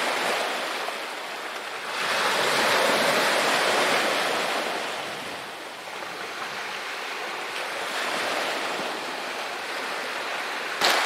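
Sea waves washing against a rocky shore, the surf swelling and easing off in slow surges. A brief knock near the end.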